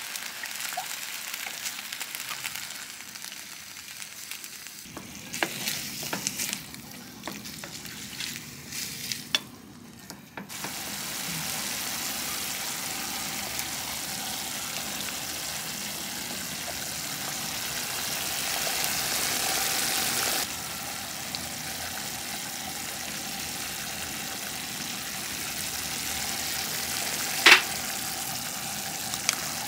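Food sizzling as it fries in a pan, with a utensil clicking and scraping against the pan between about five and ten seconds in. A single sharp knock near the end is the loudest sound.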